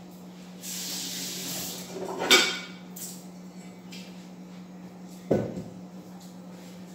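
Kitchen clatter as pots and dishes are handled: a brief hiss, then a loud clank about two seconds in and a single sharp knock about five seconds in, over a steady low hum.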